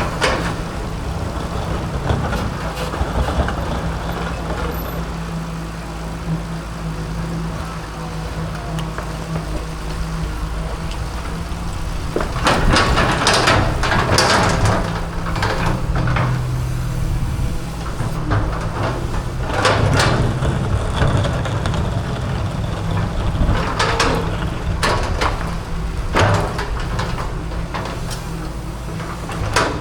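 Excavator's diesel engine running steadily under load while it works, with several loud noisy bursts of crunching and scraping over it, the longest and loudest about halfway through, as it breaks up a cement fence.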